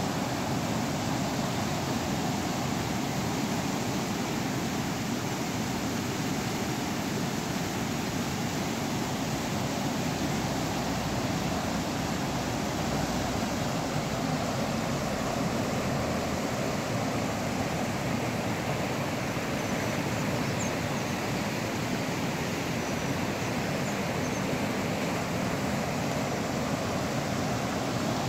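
Fast mountain river rushing over rapids: a steady, even noise of churning white water.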